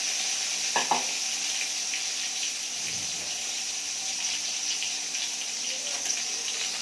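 Brinjal slices frying in hot oil in a pan: a steady crackling sizzle, with two short knocks about a second in.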